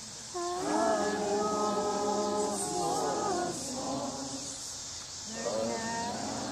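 Voices singing slowly together, unaccompanied, in long held notes, in two phrases with a short break a little after halfway. Insects chirr steadily in the background.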